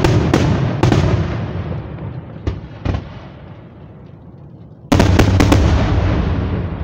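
Aerial fireworks shells bursting: two sharp bangs with a rumbling echo that dies away, two lighter cracks, then about five seconds in a sudden new volley of loud bangs whose rumble fades.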